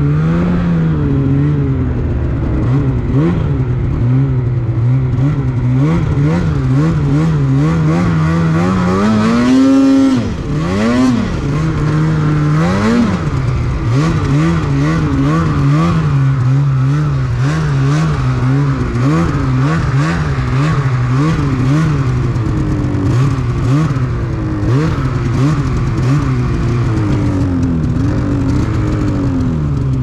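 Snowmobile engine running under the rider's throttle on a snowy trail, its pitch wavering up and down as speed changes. It revs up sharply about ten seconds in, drops, and gives two quick blips over the next few seconds.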